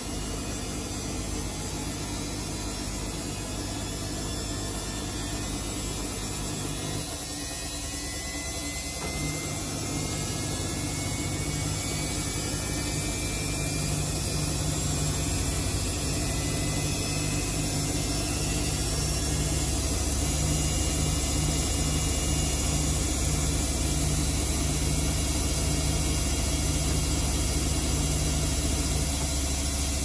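Samsung front-loading washing machine with its drum speeding up into a spin: a faint motor whine rises in pitch and the low hum grows louder over about ten seconds, then settles into a steady fast spin.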